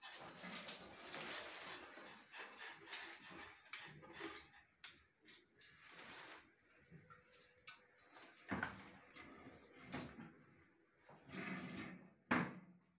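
Handling noise of a wire pull-out kitchen-trolley basket and cabinet drawer being slid and fitted: scattered clicks, knocks and sliding rattles with short pauses, and one sharp knock near the end.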